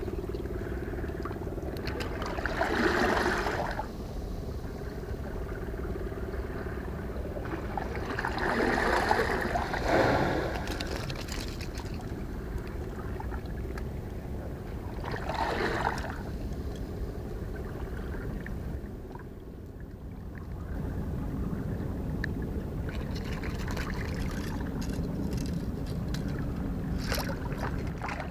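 Water sloshing against a concrete seawall, swelling three times, over a steady low rumble.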